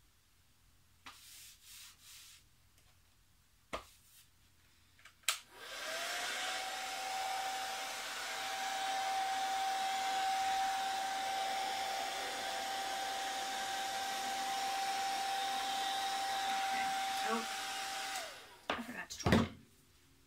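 Hair dryer switched on about five seconds in: its motor whine rises quickly to one steady pitch over an even rush of air and runs for about twelve seconds before being switched off. A few light clicks come before it and a couple of knocks after.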